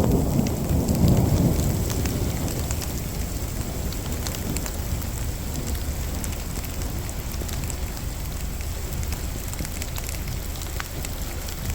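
Heavy thunderstorm rain falling steadily, with scattered sharp ticks of drops. A low rumble of thunder fills the first couple of seconds and fades away.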